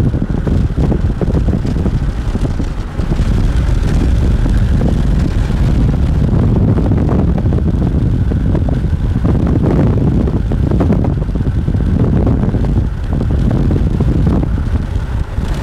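Wind buffeting the microphone: a loud, gusty low rumble that swells and dips irregularly.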